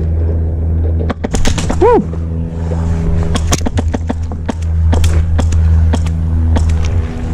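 Airsoft guns firing: sharp, irregular shots scattered throughout, over a steady low hum. A short shout comes about two seconds in.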